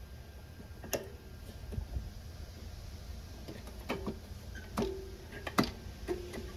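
Scattered sharp clicks and taps of small carburetor parts and hand tools being handled while a carburetor is refitted to a lawn mower's Briggs & Stratton engine, about six in all, the loudest about two-thirds through, some with a brief ring after them.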